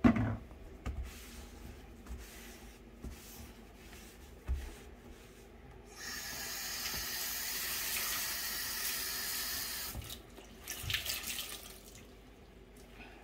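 Kitchen mixer tap turned on, with water running steadily into the sink for about four seconds before it is shut off. Then comes a second or two of splashing as hands work in the soapy water.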